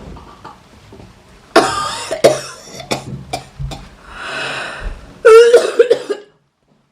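A person coughing and hacking hard several times over, as if to clear a fish bone stuck in the throat, ending in the loudest burst, a strained, voiced gagging cough.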